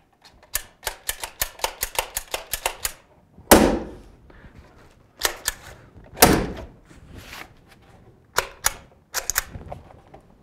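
Hammer tacker driving staples through house wrap into the wood framing of a window rough opening. A quick run of about a dozen light, sharp clicks comes first, then single, heavier strikes every second or so.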